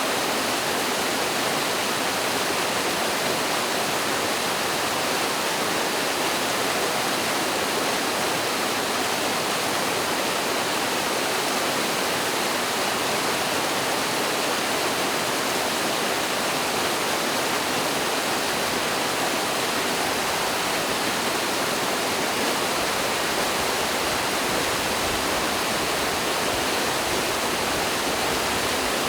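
Mountain stream pouring over a small waterfall, a steady, even rush of water that is more hiss than rumble.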